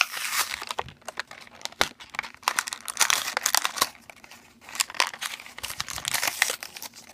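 A toy's packaging being torn open and crinkled by hand: irregular rustling and crackling with sharp snaps throughout.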